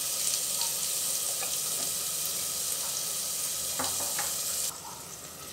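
Hot mustard oil sizzling steadily in a pressure cooker around freshly added garlic paste, garam masala and turmeric. A couple of faint clicks come about four seconds in, then the sizzle drops suddenly to a much lower level near the end.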